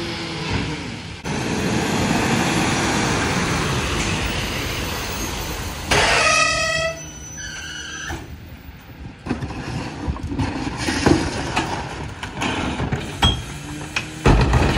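Freightliner Econic garbage truck pulling up with its engine running, then a short high brake squeal as it stops about six seconds in. After that come scattered knocks and rattles of a plastic trash cart being handled at the McNeilus rear loader, and near the end a loud clatter and rumble as the cart tipper lifts the cart.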